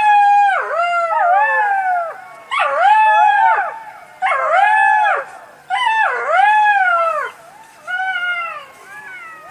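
Fox howling: a series of about five wavering, high-pitched calls that rise and then fall in pitch, each lasting one to two seconds. The last call is fainter.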